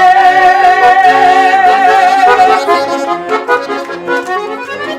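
A woman's voice holds a long sung note with vibrato over garmon (Russian button accordion) accompaniment. The note ends about halfway, and the garmon plays on alone with shifting chords and bass notes.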